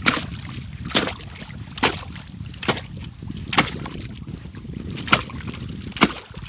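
Steel ice chisel jabbing into thick ice at the edge of a freshly cut hole, a sharp chopping strike about once a second, seven strikes in all, over steady low wind noise on the microphone.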